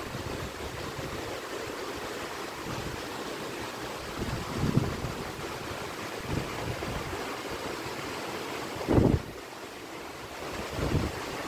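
Monsoon rain falling steadily as an even hiss, with low gusts of wind buffeting the microphone several times, the strongest about nine seconds in.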